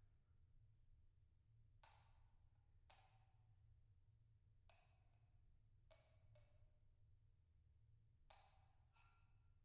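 Very quiet, sparse percussion strokes in a contemporary solo-percussion piece: about eight single struck notes, each ringing briefly and dying away, spaced irregularly with short gaps between them.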